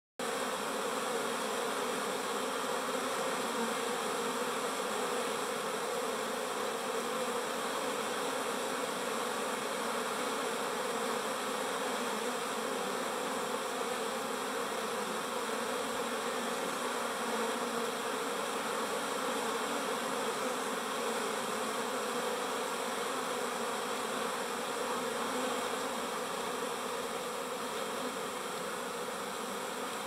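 Many honeybees buzzing as they fly in and out at a hive entrance, a steady, unbroken hum.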